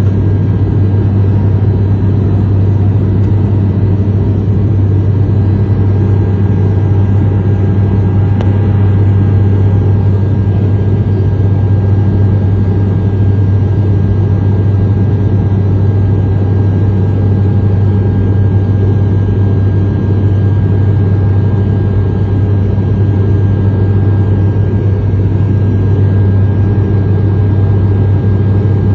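Aircraft engine noise heard inside the cabin in flight: a loud, steady low drone with a faint steady whine above it, unchanging throughout.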